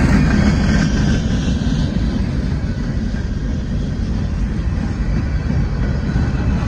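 Freight train boxcars rolling past: a steady rumble of steel wheels on the rails.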